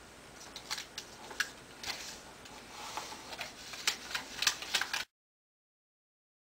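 Sheet of origami paper being folded and creased by hand: scattered crinkles, rustles and sharp crackles, cutting off abruptly into dead silence about five seconds in.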